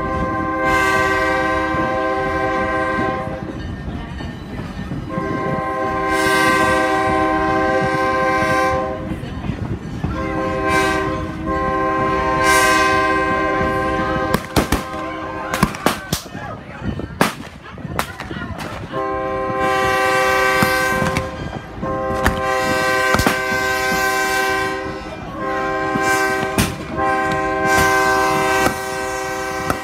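Locomotive air horn sounding a chord in about six long blasts with short gaps. From about halfway through, several sharp rifle shots crack out, fired by reenactors beside the track.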